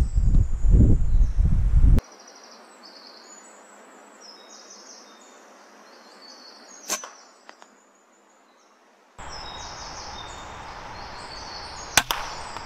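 Weihrauch HW100 .22 PCP air rifle firing: a sharp crack about seven seconds in and a louder one near the end, with birds singing throughout. Loud low rumbling noise fills the first two seconds and cuts off suddenly.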